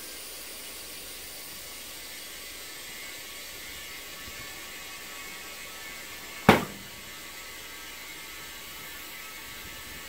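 Compressed air hissing steadily through a chuck on the valve stem of a truck tire on a steel dually rim, inflating it. Past the middle comes one sharp, loud pop as the tire bead seats on the rim.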